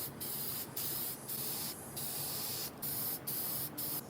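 Aerosol can of filler primer spraying in a series of short hissing bursts, about two a second, as coats go onto a sanded 3D print.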